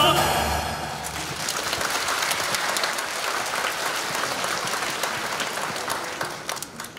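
Theatre audience applauding after a song ends, with the last sung note and music dying away in the first second. The applause fades near the end.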